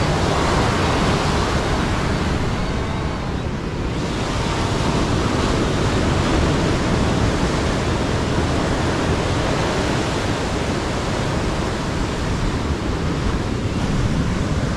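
Ocean surf breaking on a sandy beach in a steady rush, with wind buffeting the microphone.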